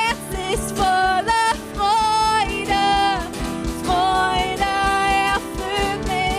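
Worship band music: long held melodic notes with vibrato, most likely a voice singing without clear words, over a steady drum and bass beat.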